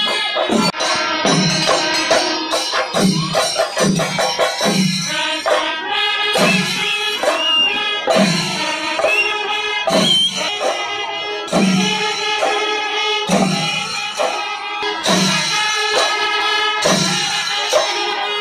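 Festival brass band playing a lively tune, horns holding bright sustained notes over a steady bass-drum beat of about one stroke a second.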